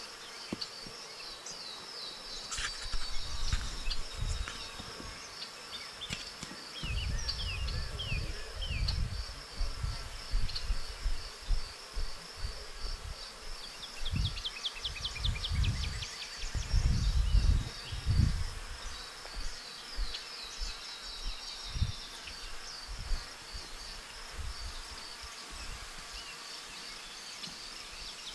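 Steady high-pitched pulsing insect chirring, cricket-like, with short falling chirps over it and low rumbling bumps on the microphone a few times.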